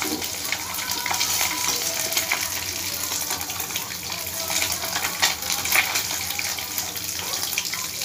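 Oil sizzling in a hot kadai as fried fish is lifted out, with a spatula scraping and clicking against the pan. The steady frying hiss is the sign of fish that is done and being taken off the heat.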